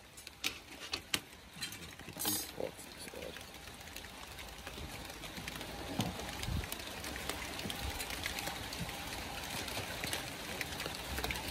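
A phone rubbing against a quilted jacket, with scattered clicks and rustles for the first few seconds. Then a steady, even hiss of light rain falling outdoors.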